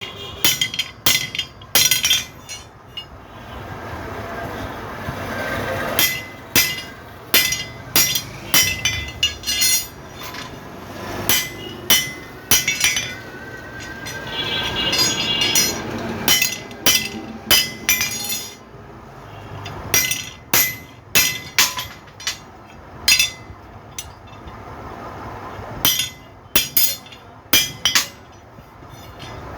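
Repeated sharp clinking strikes with a short ringing tail, irregularly spaced about one or two a second, like hard objects or tools striking metal. A rushing noise swells and fades between them.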